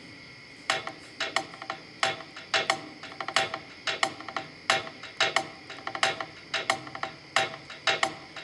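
Crickets chirping steadily, then a little under a second in a percussion rhythm of sharp clicks with a pitched knock starts and keeps going in an uneven pattern of two or three hits a second: the opening of a music track.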